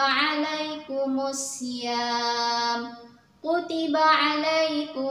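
A woman's voice chanting a Quran verse in melodic recitation (tilawah), drawing out long held notes. There is a short breath pause about three seconds in.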